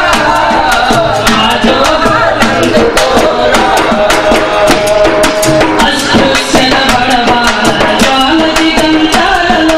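A folk song sung by several voices to a dappu, the large frame drum beaten with a thin stick, keeping a steady rhythm of sharp strokes under the singing.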